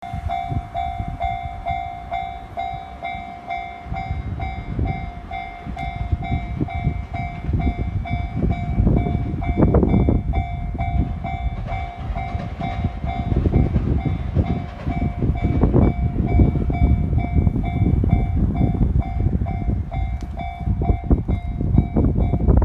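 Japanese level-crossing warning bell ringing with a steady, rapid repeating ding, while the low rumble of a single-car KiHa 140 diesel railcar builds from about four seconds in and swells loudly as it runs through the crossing.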